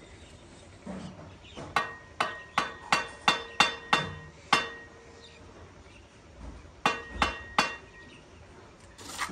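Steel mason's trowel striking brick as bricks are set and trimmed in fresh mortar: a quick run of about eight sharp taps with a short metallic ring, a pause, then three more.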